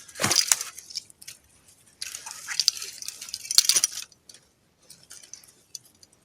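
Scuffling, scraping and sharp clicks as a trapped American mink is handled to free it from a steel leghold trap, with a longer spell of hissy, scratchy noise and clicks in the middle.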